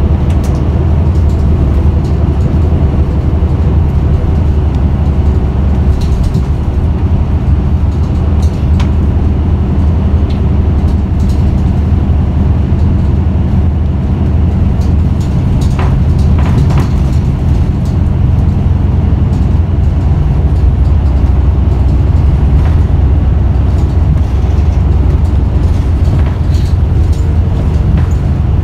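Isuzu Erga city bus's diesel engine running with a steady low rumble, heard from inside the passenger cabin. A few brief knocks and rattles come through, mostly around the middle.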